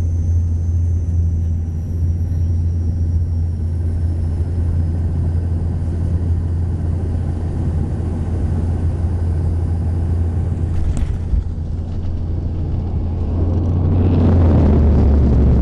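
Cabin noise of a turboprop airliner landing: a steady low propeller drone as it comes down onto the runway and rolls along it. A single knock about eleven seconds in, and the noise swells louder near the end.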